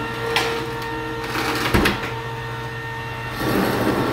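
Pittsburgh 1300 lb electric hoist motor running steadily as it winds in its cable and lifts the rear of a snowmobile, with a couple of sharp knocks along the way. It gets louder about three and a half seconds in.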